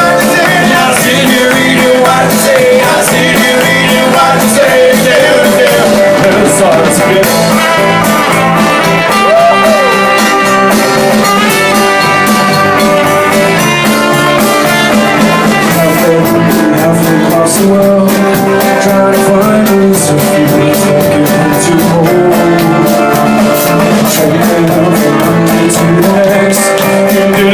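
Small rock band playing live and loud: guitars and a drum kit with a steady beat, and a man singing.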